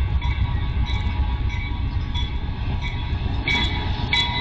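Diesel freight locomotive rumbling as it approaches and passes, the steady low rumble being the loudest sound, with a grade-crossing warning bell striking about one and a half times a second. The bell strikes ring out more clearly from about three and a half seconds in.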